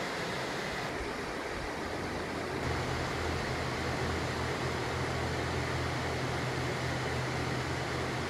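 Steady rushing of a waterfall. About three seconds in, a low steady rumble joins it and holds.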